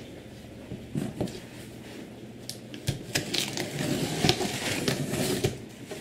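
A knife cutting through packing tape on a cardboard box, with scraping, crackling and cardboard rustling that grow busier about three seconds in.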